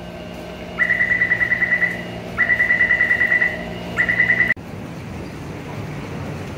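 Taipei MRT door-closing warning at the platform screen doors: a rapid electronic beeping, about ten beeps a second, in three runs of about a second each, the last one cut off short. A low steady hum runs beneath, and after the beeping the sound turns to station crowd noise.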